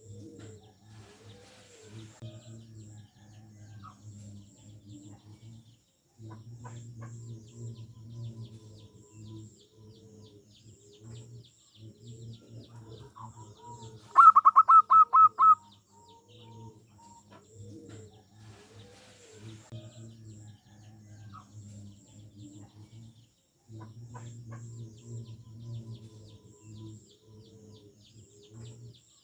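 Zebra doves cooing in repeated rolling phrases that run almost without a break. About halfway through comes a short, loud run of about eight quick, higher notes.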